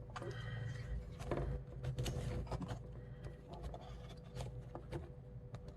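Scattered faint clicks and light taps from watercolor painting materials being handled: a brush, a water brush and a travel paint palette.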